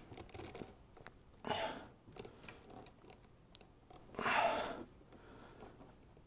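Faint handling noise from a ratchet and socket being worked down among engine-bay parts to reach a hidden bolt: a few light clicks and two short rustling bursts, one about a second and a half in and a louder one past the middle.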